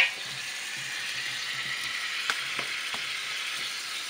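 Sausage pieces sizzling steadily in a nonstick pot as the last of their cooking water boils off. A wooden spatula knocks sharply against the pot right at the start, with a couple of lighter knocks about halfway through.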